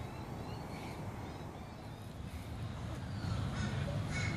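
Outdoor background noise, mostly a low rumble, with faint short bird chirps in the first couple of seconds. The rumble grows louder about three seconds in.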